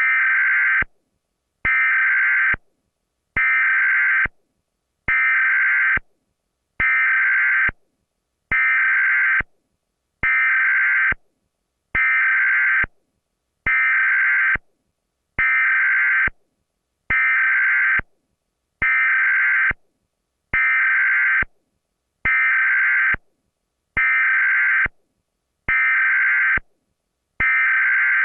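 Emergency Alert System alarm tones repeating over and over: a burst of harsh tone about a second long, then a short gap, about every 1.7 seconds.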